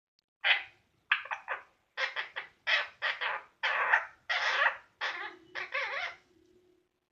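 Indian ringneck parrot giving a run of about a dozen short, harsh squawks in quick succession, a few of them drawn out longer. These are the sounds it makes just before going to sleep.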